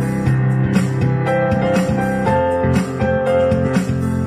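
Instrumental background music with a steady beat, sustained notes over a regular pulse of struck or plucked notes.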